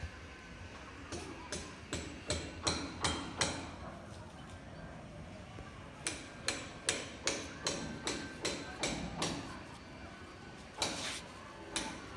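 Repeated hammer blows on a hard building material, in two runs of sharp strikes about three a second, with a pause between, then a couple of single blows near the end.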